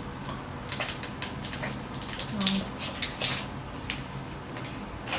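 Toy packaging being handled and unwrapped: scattered crinkles and small clicks of paper and plastic.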